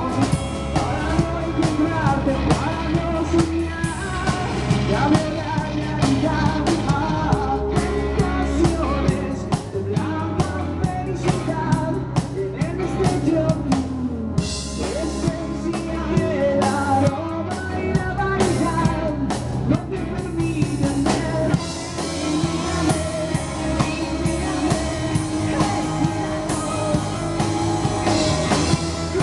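Live rock band playing at full volume, with a drum kit, amplified electric guitars and a singer.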